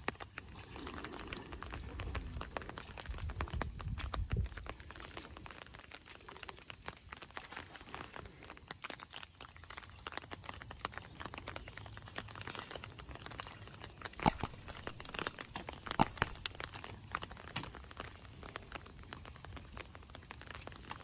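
Steady high-pitched insect chorus, with footsteps on wet ground and scattered ticks. Two sharp clicks stand out in the second half.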